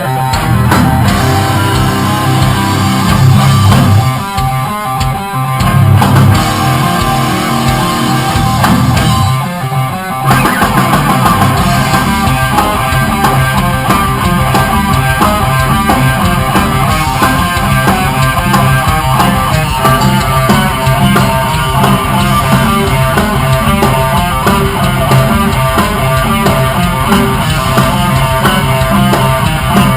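Rock music: electric guitar with bass and drum kit, the full band with busy drums coming in about ten seconds in.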